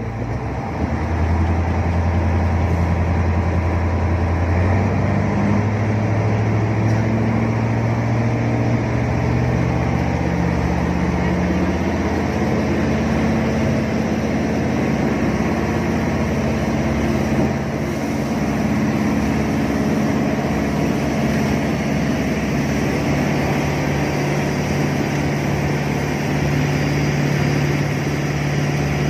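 Jet boat engine running hard, swelling about a second in. Its pitch climbs in steps over the next ten seconds or so, then holds steady.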